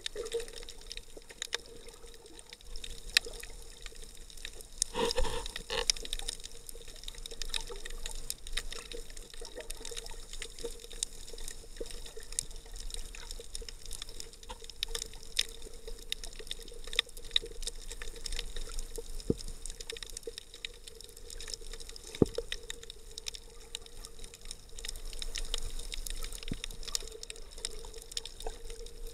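Underwater sound picked up through an action camera's waterproof housing: muffled water noise with many scattered sharp clicks and crackles and a faint steady hum. There is a louder rush of water about five seconds in.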